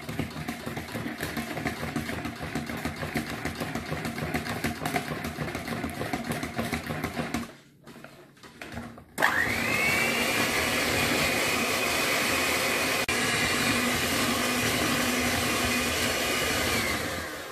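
Tefal Freeline electric hand mixer beating chocolate cake batter. It runs with a wavering, uneven sound, cuts out for about a second and a half, then starts again with a quick rising whine and runs steadily and louder at a higher pitch, winding down near the end.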